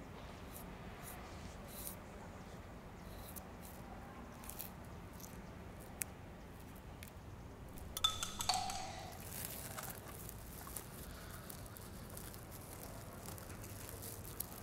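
Faint, sparse crackles and small ticks of paper layers being peeled off a marble bust with tweezers. A single sharp click comes about six seconds in, and a louder second or so of crackling comes about eight seconds in.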